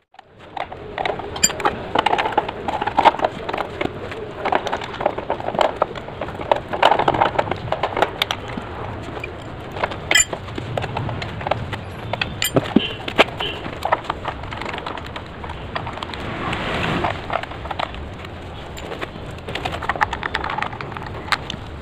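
Irregular metallic clicks and knocks of spanners and fittings as the motorcycle's rear axle and chain adjuster are worked on and tightened by hand.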